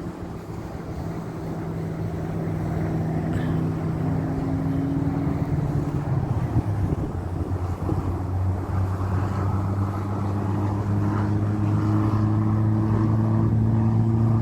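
A car driving, with a steady engine and road hum that grows gradually louder.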